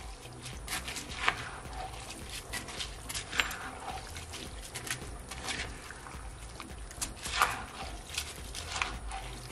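A spatula stirring raw rice into chicken and its juices in a nonstick skillet: irregular scrapes and rustles of the grains with soft wet sounds, a few strokes louder than the rest.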